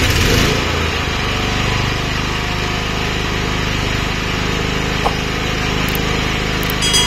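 Small four-stroke gasoline generator engine, just pull-started, running steadily; it is a little louder through the first second as it catches, then settles to an even run.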